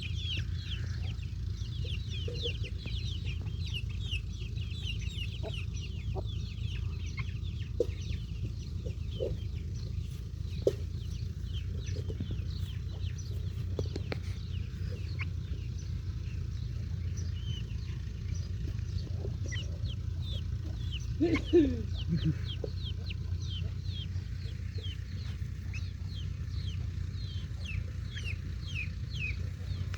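Baby chicks peeping continuously, many short high cheeps that slide down in pitch, busier in the first half, over a steady low hum. A single louder, lower call stands out a little over twenty seconds in.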